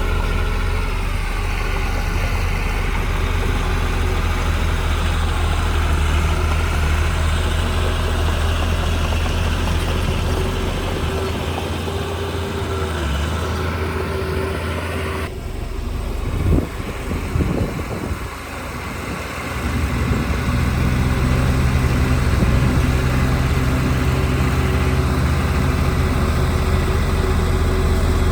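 Heavy diesel earthmoving machinery running steadily. A little past halfway the sound changes abruptly, a few knocks follow, and after a brief dip the engine picks up again.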